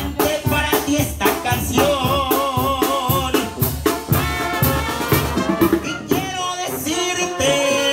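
Mexican banda brass band playing live: sousaphone, trumpets, trombones and clarinet over drums keeping a steady beat, with a man singing into a microphone.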